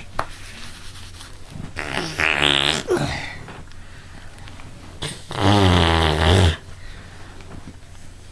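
Two drawn-out, low-pitched vocal noises from a man, about two seconds in and about five seconds in, the second one louder.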